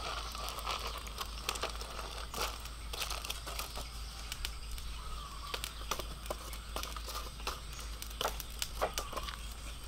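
Aluminium foil crinkling as a foil-wrapped parcel is handled and set on a wire grill over a charcoal stove, with scattered small clicks and crackles.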